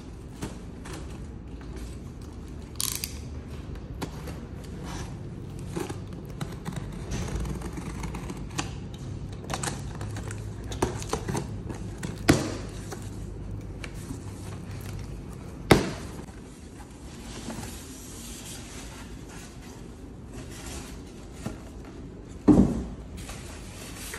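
Unboxing noises: a utility knife cutting the packing tape and strap on a cardboard carton, the cardboard scraped and handled with many small clicks and rustles, and three louder knocks spread through it. Near the end the polystyrene foam top is lifted off the packed unit.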